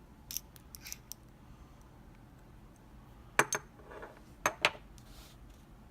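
Small metal clinks and clicks from handling a picked Abus E60 euro cylinder lock and its picking tools: a few faint ticks at first, then two sharp clinks about a second apart past the middle, and another at the very end.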